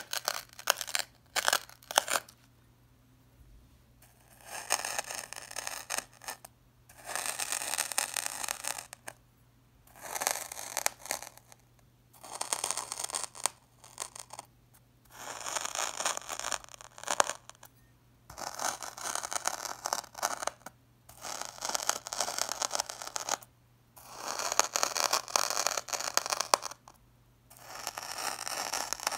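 Crunchy sand being scraped and pressed by a metal scoop, a few sharp crackles at first and then about ten gritty scraping strokes of one to two seconds each with short pauses between.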